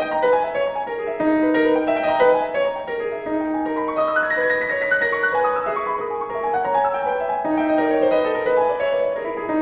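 Background solo piano music, a classical piece.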